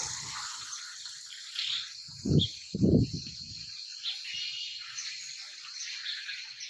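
Cut wooden slats knocking and clattering as they are handled and set down, with two dull thuds a little over two and three seconds in, over a steady high background hiss.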